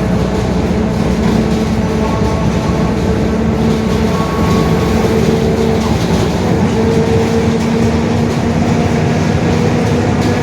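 Mercedes-Benz OF-1721 BlueTec 5 city bus running on the road: steady diesel engine and drivetrain noise with a droning tone from the differential, which growls.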